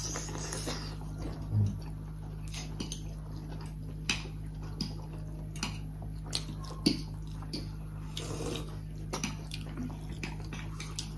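People eating steamed momos and chow mein noodles: wet chewing and lip smacks with scattered short clicks, one small thump about one and a half seconds in, over a steady low hum.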